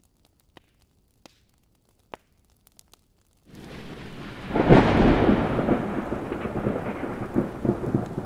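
A few faint clicks, then a rumble of thunder with rain sets in about three and a half seconds in. It swells to a loud peak about a second later and slowly dies away.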